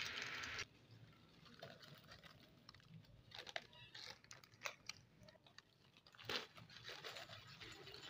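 Crisp fried namkeen pieces dropped into a glass bowl: scattered light clicks and short crunchy rattles as the dry pieces land and settle, several close together in the middle. It opens with a steady hiss that cuts off suddenly under a second in.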